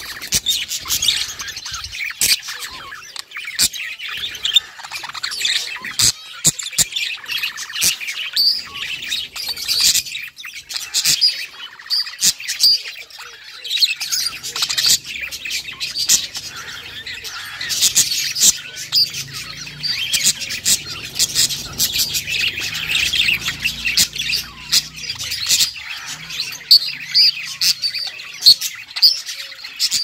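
Budgerigars chattering and warbling: a continuous stream of quick chirps, clicks and short gliding notes.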